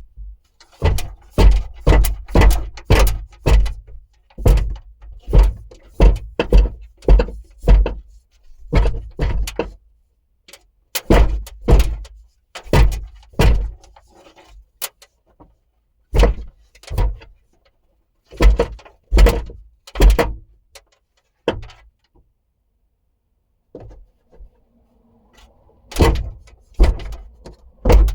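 Repeated thumps of a hand pounding on a 2020 Jeep Renegade's rear roof spoiler to knock it loose from its retaining tabs, in runs of several blows about two to three a second with short pauses between.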